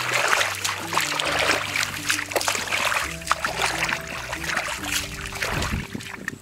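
Background music with a stepping bass line, over irregular splashing and sloshing of hands and legs working through shallow muddy water.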